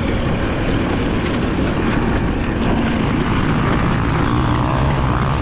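Off-road motorcycle engines running in a race, a steady loud wash of engine noise with some revving.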